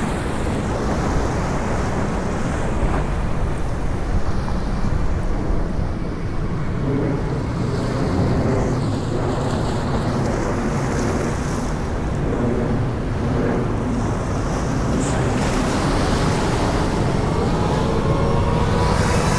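Wind buffeting the microphone over the wash of sea waves, a steady rushing noise. A faint rising whine comes in near the end.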